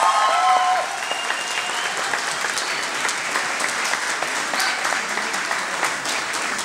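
Audience applauding, many hands clapping at once, with a drawn-out cheer from a voice that fades out in the first second.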